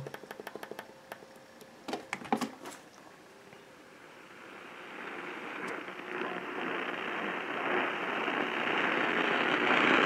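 Digital AM radio being tuned up the band: a quick run of small clicks as it steps through frequencies, a few louder clicks, then AM static hiss that swells as it settles toward a new station.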